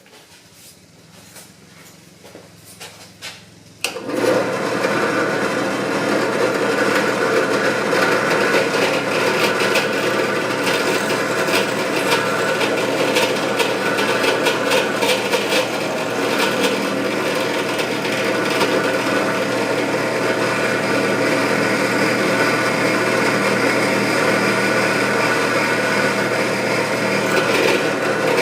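A few light clicks of handling, then about four seconds in a power drill starts and runs steadily, with a grinding edge, as it bores a hole into a metal scope-ring mount for a stop pin.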